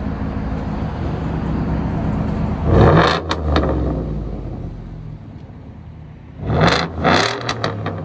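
2016 Ford F-150's 5.0 L Coyote V8, straight-piped with the muffler and tailpipe cut off and the resonator and stock converters kept, idling and then blipped twice, about three seconds in and again near the end. Each rev climbs and drops back to idle with a few sharp pops.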